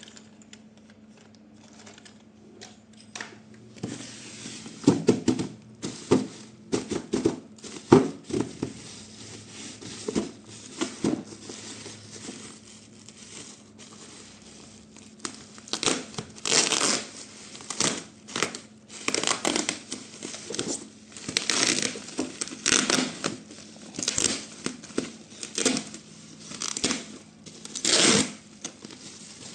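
Packaging being torn open and crinkled by hand: irregular rips and rustles, sparse at first and denser and louder in the second half.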